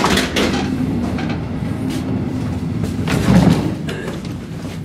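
Heavy passenger-train carriage door being pushed through and closing, with knocks at the start and a low thud about three seconds in, over the steady running rumble of the moving train.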